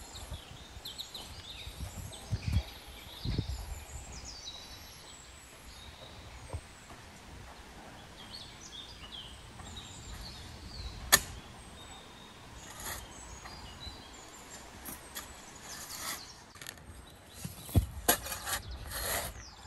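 Small birds chirping in the background, with one sharp click about halfway through. Near the end a steel shovel is driven into dry sandy soil several times, scraping and thudding as earth is dug out.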